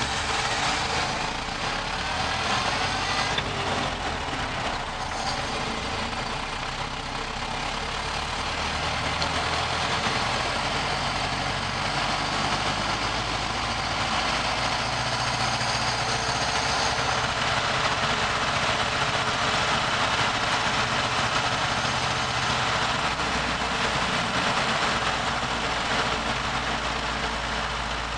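1930 Ford Model A pickup's four-cylinder flathead engine running steadily while driving, heard from inside the cab. It is very noisy because the carburetor has no air cleaner.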